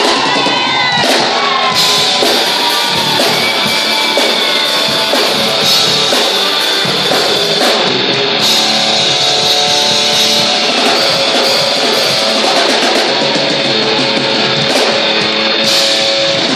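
Live band playing loud rock music: electric guitar and drum kit with crashing cymbals, and a voice singing near the start.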